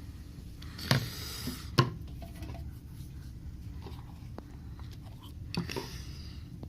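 Small objects handled on a work surface: two sharp clicks about a second apart, with a short scrape between them and another scrape with small ticks near the end, over a steady low hum.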